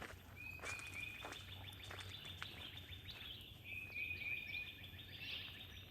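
Songbirds singing in woodland: a phrase of short clear notes repeated about four times a second, sung twice, with a higher held note between.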